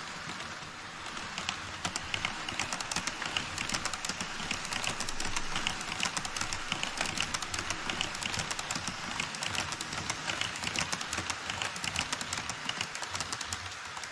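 HO scale model E5 series Shinkansen running across a model truss bridge: a steady rushing track noise with rapid, rhythmic clicking of the wheels over the rail joints, starting about a second in and continuing as the train passes.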